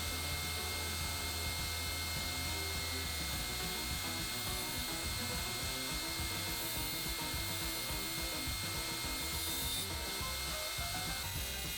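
Shopsmith bandsaw running steadily and resawing a 4x4 cedar post, its blade cutting lengthwise through the wood.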